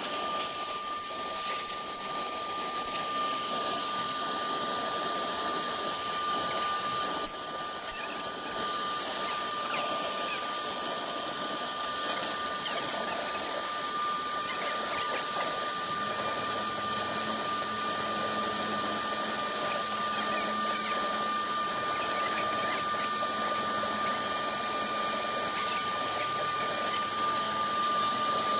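CNC router spindle running with a steady high whine while its cutter engraves and cuts MDF, with a rasping noise of the bit in the board. It gets louder and hissier about twelve seconds in, and a low hum joins later.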